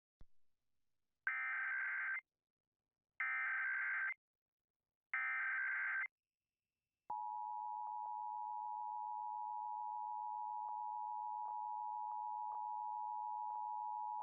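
Emergency Alert System header: three bursts of SAME digital data, each a buzzing warble of shifting tones about a second long. Then, about seven seconds in, the steady two-tone EAS attention signal (853 and 960 Hz) starts and holds. Together they open a national test alert.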